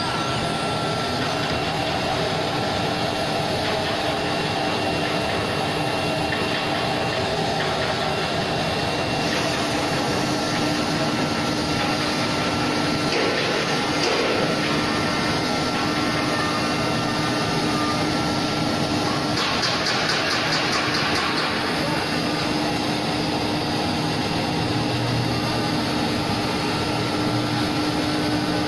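Large CNC wood router running steadily with a constant hum, its machining head working a wooden board. The noise swells into louder hissing stretches about 13 seconds in and again from about 20 to 22 seconds.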